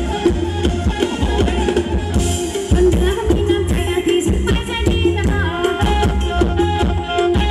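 Thai ramwong dance music from a live band played loud through PA speakers, with a steady drum beat and heavy bass under sustained melody notes.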